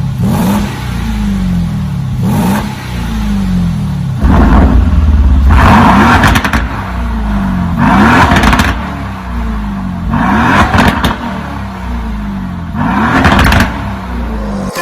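Aston Martin DB11's twin-turbo V8 revved again and again through a titanium active-valve sport exhaust with the secondary catalysts deleted. The engine note climbs and drops about every two seconds, six or seven times.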